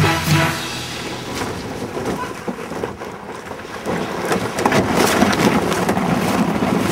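Canoe hull scraping and bumping as it slides down a hill: a rough, continuous rattling scrape with many small knocks, growing louder about four seconds in.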